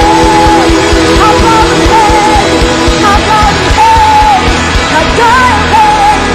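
Live worship music: a woman's lead vocal carrying the melody over a full band with a steady drum beat.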